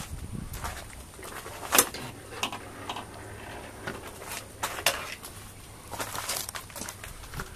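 Scattered clicks, knocks and rustles of someone moving about a parked truck's open cab, with the sharpest click about two seconds in. No engine is running.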